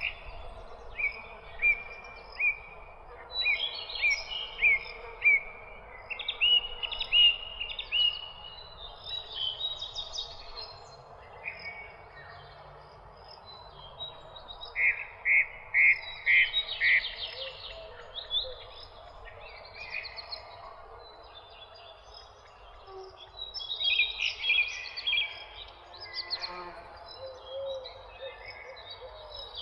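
Several songbirds chirping and singing in overlapping short calls, whistled notes and trills, with a run of loud repeated notes about halfway through, over a steady background noise.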